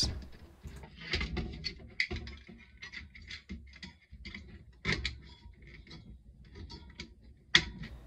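Plastic heatsink locking clips being pushed into a desktop motherboard while the board is handled on a table: scattered clicks and knocks with rustling between them, the sharpest about five seconds in and again just before the end.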